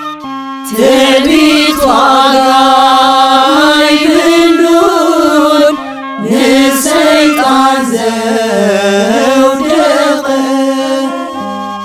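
Tigrinya Orthodox mezmur hymn sung in two long chanted phrases, split by a short pause about six seconds in, over a melodic instrumental accompaniment that plays alone at the start and again near the end.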